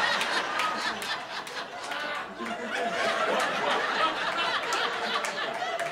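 Audience laughing, with scattered hand claps.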